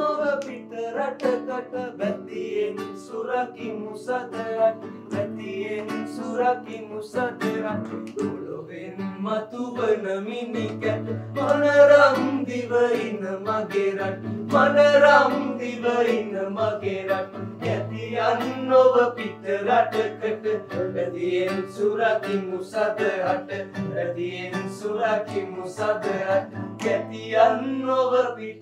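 A man singing a melody while strumming an acoustic guitar, with steady strums under the sung line.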